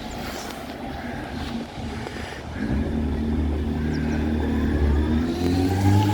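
A bus engine joins in about two and a half seconds in, getting louder, and its pitch rises toward the end as it accelerates.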